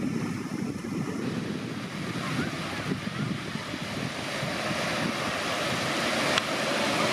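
Small lake waves lapping and breaking in the shallows, with wind rumbling on the microphone; a single sharp click about six seconds in.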